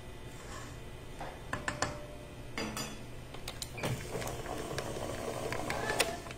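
Stand mixer running its flat beater through crumbly butter-and-flour pastry dough in a steel bowl: a low motor hum with scattered clicks and knocks, getting busier and louder about four seconds in. It is pulsed in short bursts to work in the last of the flour without warming the dough.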